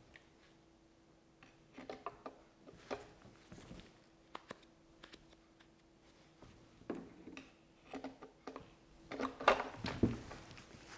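Light plastic clicks and knocks of a Husqvarna chainsaw's clutch cover being handled and fitted onto the saw body over the guide bar and chain, with a busier clatter about seven seconds in and again near ten seconds.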